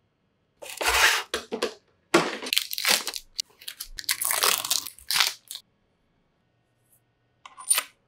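Clear plastic protective wrap being torn and crinkled off a new bicycle frame in four quick noisy bursts, followed by a few short sharp clicks near the end.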